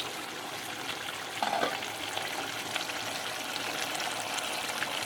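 Chicken wet fry sizzling and crackling steadily in a pan on the heat, with a short louder sound about a second and a half in.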